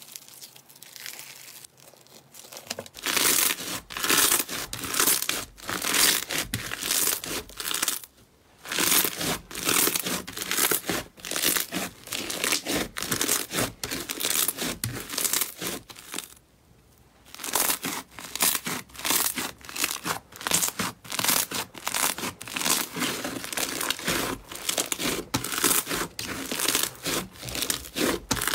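Hands squeezing and kneading foam-bead slime: a dense, crisp crackling and popping as the slime and beads snap between the fingers. It is quieter for the first three seconds, then comes in steady runs with short pauses about a third of the way through and past the middle.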